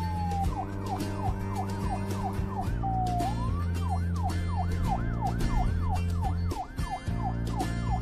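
Emergency siren yelping in fast rising-and-falling sweeps, about three a second, slowing to one longer sweep about three seconds in. It plays over background music with a steady beat.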